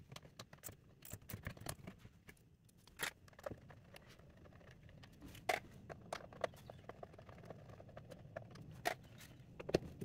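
Scattered clicks, taps and scrapes of hard plastic trim and hand tools as the small plastic compartment in a 1991 Mercedes G-Wagon's centre console is worked loose, over a faint low hum. The sharpest clicks come about three, five and a half, and nine seconds in, and just before the end.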